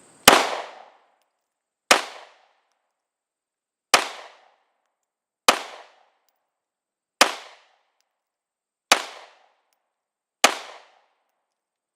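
Seven 9mm pistol shots from a Glock 19 Gen 5, fired slowly and evenly about one every one and a half to two seconds, each a sharp crack with a short ringing tail.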